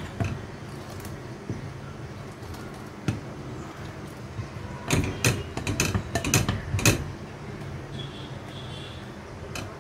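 A spoon stirring thickening custard in a saucepan on a gas stove, knocking and scraping against the pan: a few single clicks, then a quick run of knocks about five to seven seconds in, over a steady low hum.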